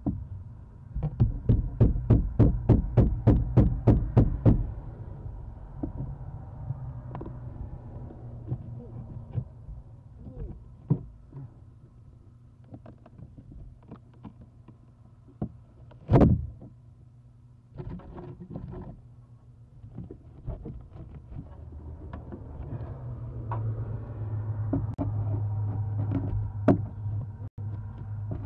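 A rapid run of knocks on the nest box, about four a second for several seconds near the start, then scattered taps and one sharp knock midway through, over a low steady hum.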